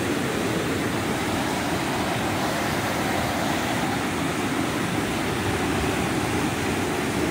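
River water pouring over a low dam's spillway and churning below it: a steady rushing noise.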